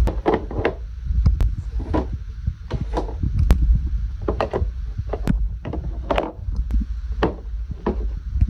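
Irregular popping and clicking, a dozen or more sharp pops at uneven intervals, over a low rumble, as brushes are cleaned.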